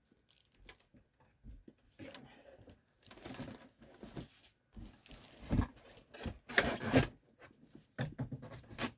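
Packaging being handled: irregular rustling, crinkling and scraping with a few knocks as the RC truck and its parts are packed back into their cardboard box.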